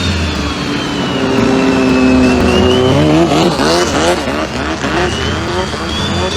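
Diesel engine of a Thai longtail racing boat running hard, with a high whine that drops in pitch and then climbs again, and fast wavering engine sounds from about three seconds in.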